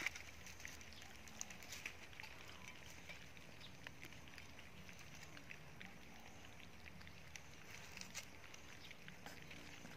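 Faint, scattered small clicks and smacks of puppies eating from a metal bowl, over a quiet outdoor background.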